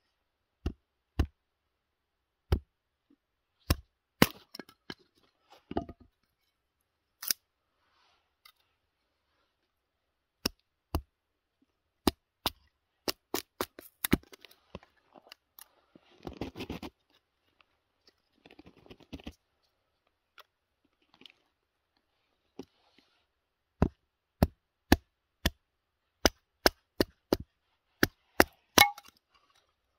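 Hultafors Åby axe splitting kindling off a firewood round: sharp chopping strikes into dry wood with splits cracking off, spaced at first and then a quick run of about two strikes a second near the end. There is a brief stretch of crackling and rustling about midway.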